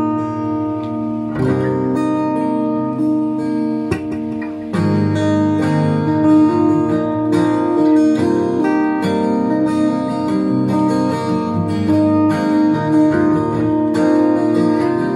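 Acoustic guitar playing a steady strummed and picked accompaniment, a song's instrumental intro with no voice over it yet.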